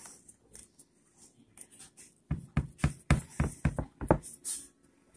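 Hands pressing and stretching pie dough over a baking pan. After a quiet start, about two seconds of quick, irregular knocks and thumps as the pan and dough are worked against the counter.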